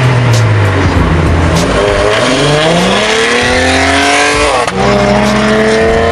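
Car engine accelerating hard, its pitch rising for a couple of seconds, then a gear change near the end drops the revs and it pulls on steadily.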